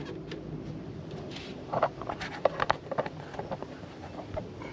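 A run of light clicks and knocks, clustered about two seconds in, from a handheld digital multimeter and its test leads being handled and set down on the plastic cowl of a car.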